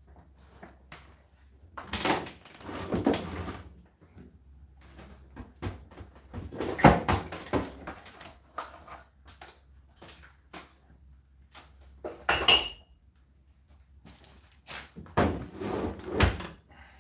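Irregular clunks, clicks and rustling as a tumble dryer is handled and its door or plastic parts are opened and shut, with a short ringing clink about twelve seconds in.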